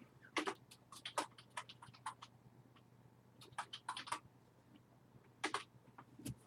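Computer keyboard being typed on: sharp key clicks in short, irregular runs with pauses between.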